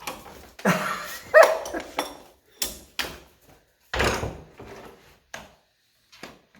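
A dog barking several short times. A thump about four seconds in.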